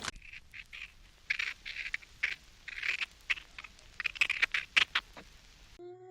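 A bird giving a run of short, harsh calls in irregular clusters. Near the end it cuts off abruptly, and a different animal's drawn-out whining call begins.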